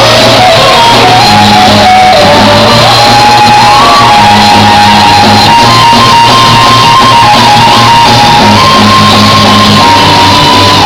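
Live rock-and-roll stage music, very loud: a band with a steady repeating bass line under a held, stepping high melody line, with shouting voices over it, echoing in a large hall.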